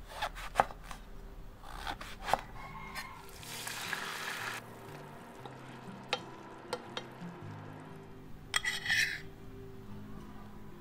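A run of cooking sounds: a chef's knife chopping eggplant on a wooden cutting board in sharp clicks, then a sizzling hiss, a wooden spoon stirring in a small pan, and a cluster of clinks and scrapes near the end.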